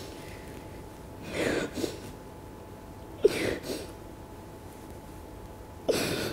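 A young man crying: three sniffling, sobbing breaths about two seconds apart.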